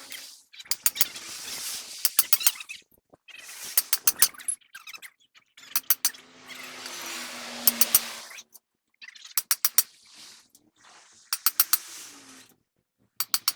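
Hand tools working on metal: about seven short bursts of rapid metallic clicking and scraping, with brief pauses between them.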